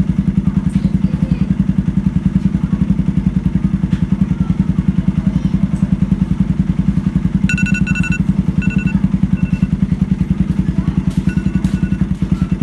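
Suzuki GD110's single-cylinder four-stroke engine idling steadily. A phone timer alarm beeps in short repeated groups from about halfway through.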